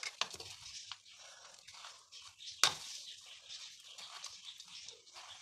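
A metal spoon turning a chicken ball through crushed cornflakes in a ceramic bowl, an uneven crunchy scraping, with one sharp clink of the spoon against the bowl about two and a half seconds in.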